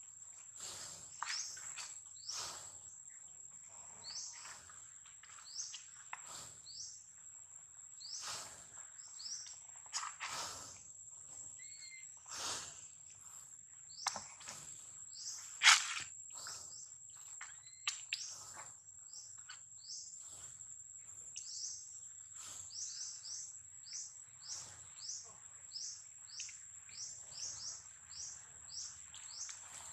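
Outdoor natural ambience: a steady high-pitched insect whine under many short chirping bird calls, which come about two a second near the end, with one louder sharp call a little past halfway.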